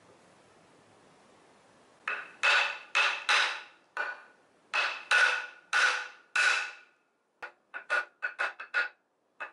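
A hammer strikes the end of a wooden 2x4 held against the harmonic balancer of a Jeep 4.0 straight-six, driving the balancer onto the crankshaft. The blows have a short ringing note: nine hard blows about half a second apart starting about two seconds in, then seven quicker, lighter taps near the end.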